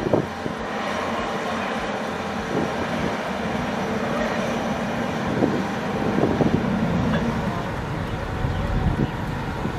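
Diesel engine of heavy earth-moving or lifting machinery running steadily, with a few brief swells in the middle.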